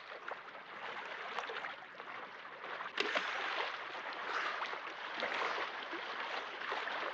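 Flowing, splashing water, a steady rushing sound with small scattered splashes and one sharper splash about three seconds in.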